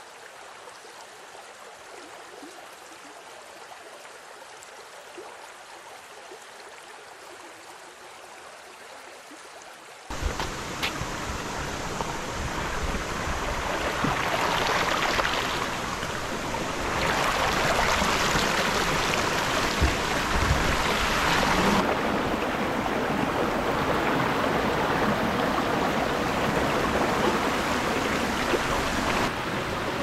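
Water running and splashing over rocks in a small rocky stream, a steady rush. About ten seconds in it becomes suddenly much louder and fuller, a small cascade close by.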